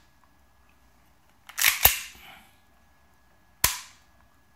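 Sharp metallic clacks of a 1911-style airsoft pistol being dry-fired, the hammer falling on a homemade firing pin: a quick pair about a second and a half in and a single one near the end.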